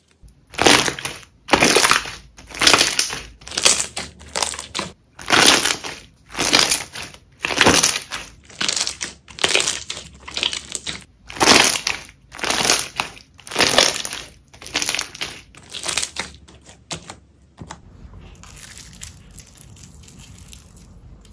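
Slime being squeezed and pressed by hand over and over, a wet, crackling squish about every half second in a steady rhythm. The pressing stops about 17 seconds in, leaving a faint hiss.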